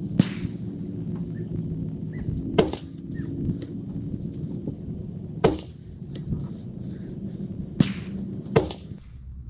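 Rifle shots from a 5.56 AR-15-type rifle with a 12.5-inch chrome-lined barrel firing 77-grain match ammunition for a group: about five sharp cracks spread a second or two apart, with a few fainter clicks between them. The audio is sped up three times.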